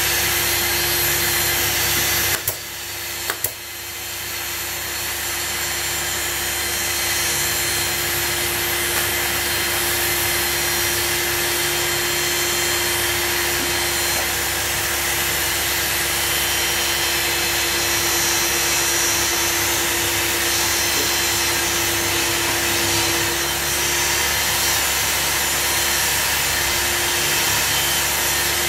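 Steady whirring drone of a workshop machine's motor with a constant hum. Two sharp clicks come about two and a half seconds in, the drone drops away briefly, then builds back up over a few seconds and runs on steadily.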